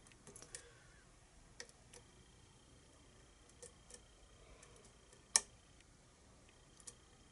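Small metallic clicks and ticks of a lock pick and tension wrench working the pins of a pin-tumbler lock, with one sharper click about five seconds in.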